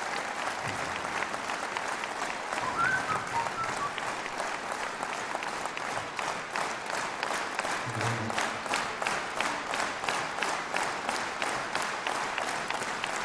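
Concert-hall audience applauding. About halfway through, the clapping falls into a steady unison rhythm of roughly three claps a second.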